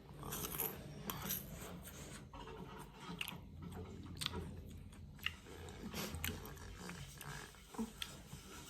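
A person chewing and eating close to the microphone, with irregular mouth clicks and smacks over a low steady hum.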